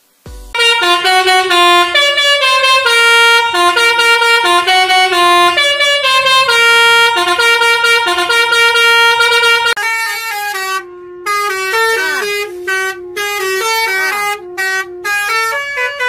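Indonesian bus 'telolet' horn, a multi-trumpet air horn playing a fast melody of shifting notes. After about ten seconds the tune becomes choppier, with short breaks and a few sliding notes.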